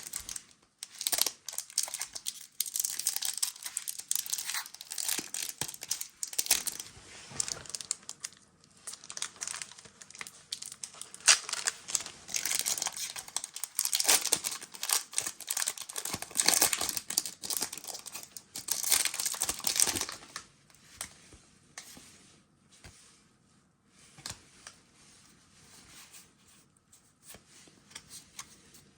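Foil wrapper of a Pokémon card booster pack being crinkled and torn open, a dense crackling and ripping for about the first twenty seconds. After that only sparse, faint clicks and rustles, like cards being handled.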